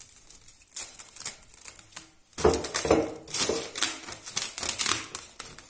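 Plastic cling film crinkling and crackling as it is pulled off the roll and pressed into a glass bowl. It is a rapid, irregular run of crackles that grows louder about two and a half seconds in.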